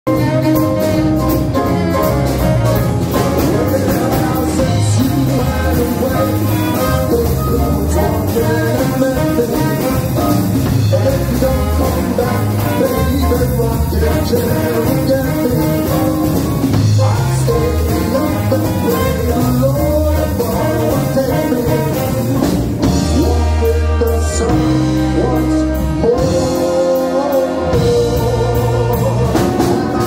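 Live big band playing jazz: trumpet, trombone and saxophones over drum kit, keyboard and guitar, loud and steady. A few seconds before the end the low end drops out briefly while the horns hold long notes.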